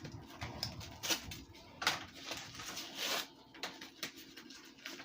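Wrapping being slowly peeled open from around baked cornstarch bricks: irregular rustling and crinkling with scattered sharp crackles.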